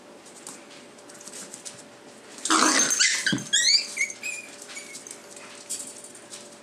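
An adult dog snarls and snaps at a Chihuahua puppy in a loud rough outburst about a second long, and the puppy answers with a quick run of high-pitched yelps.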